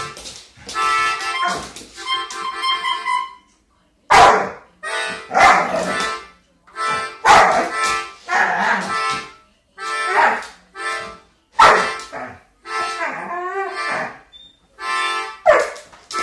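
A pit bull 'singing' along to music: a run of short pitched howls that bend up and down in pitch. In the first few seconds a reedy musical instrument plays held notes before the howling starts.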